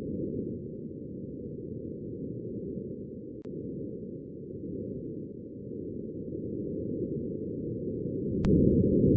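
A breath of wind on the surface of Mars picked up by the Perseverance rover's microphone: a steady, muffled low rush of noise that grows louder near the end. There is a faint click a few seconds in and a sharper click just before it swells.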